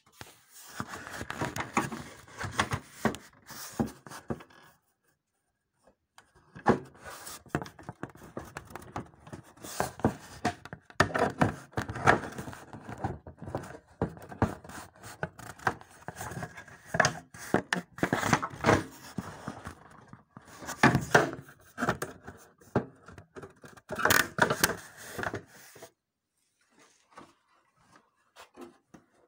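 Handling noise: irregular knocks, scrapes and rubbing as the plastic top cover of a copier's scanner is worked into place and the phone is jostled. It breaks off for about a second some five seconds in and goes quiet for a few seconds near the end.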